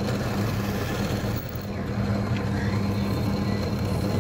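Drill press motor running steadily with a low hum while a small bit drills a post hole into a rosewood bridge blank.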